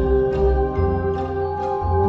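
Instrumental horror-themed background music: held low bass and sustained tones with soft, evenly spaced struck notes about twice a second.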